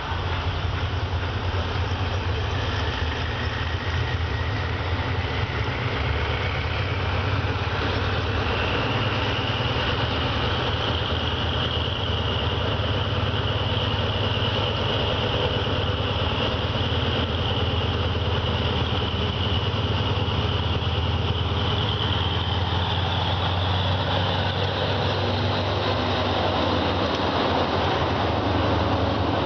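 Diesel locomotive of a passenger train pulling away and approaching, its engine running with a steady low drone and a high whine that rises in pitch over the first several seconds and then holds. Near the end the locomotive draws level and passes close by, the sound growing fuller.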